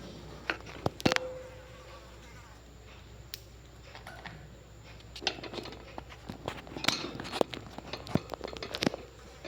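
Small birds giving short, sharp chirps and clicks, scattered at first and busier in the second half.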